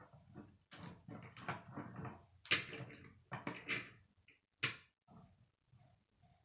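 Plastic K'nex rods and connectors clicking and clattering as hands handle them and snap them together, with a few sharp snaps: one near the start, one about two and a half seconds in and one near five seconds.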